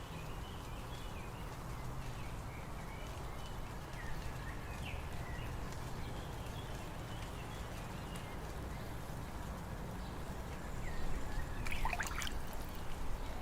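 Outdoor ambience after the song ends: a steady low background noise with small birds chirping now and then, and a louder, longer call about twelve seconds in.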